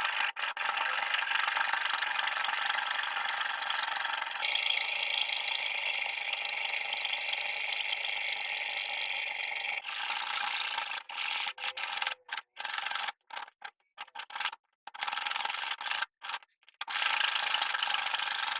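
Hand abrading of a pocket-knife part: a steady rasping, scraping noise from a file or abrasive worked by hand. In the second half the sound cuts out and comes back several times.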